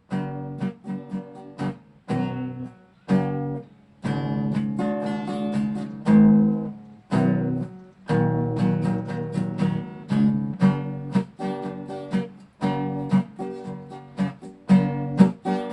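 Acoustic guitar strumming chords in a short instrumental break, with sharp strums and brief pauses between them.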